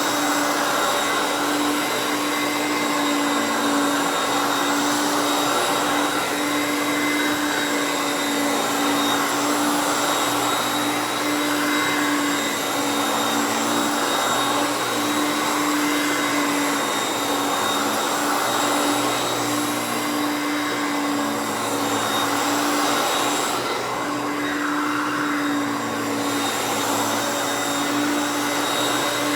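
Hoover Concept One U3101 self-propelled upright vacuum running steadily, its 5.6 amp motor giving a constant hum with a strong low whine over a rushing airflow hiss. It is a bit loud but runs smooth.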